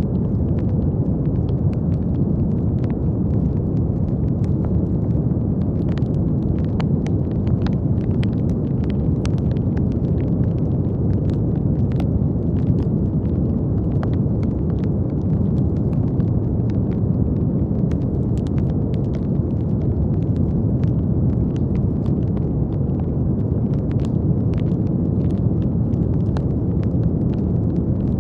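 Continuous brown noise: a steady, deep rushing hiss that is heaviest in the low end, with faint scattered crackling clicks on top.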